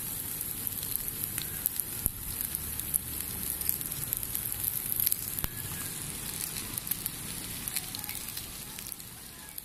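Lamb sizzling on a gas grill, a steady hiss with frequent small crackling pops, fading away near the end.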